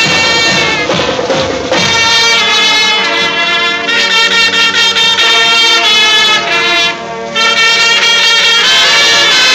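High school marching band playing as it marches: brass horns carry the tune over drums, with the horns coming in fuller about two seconds in.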